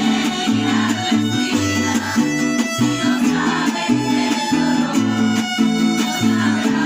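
Mariachi band playing an instrumental passage: a bass line stepping back and forth between notes under strummed chords and melody lines.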